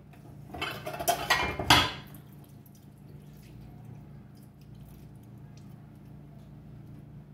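Kitchen tap water splashing over hands being rinsed, a loud burst lasting about a second and a half with a few clinks, then only a steady low hum.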